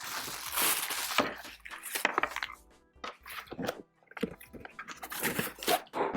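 Packaging being handled and unwrapped: irregular rustling and crinkling with sharp clicks and knocks, over quiet background music.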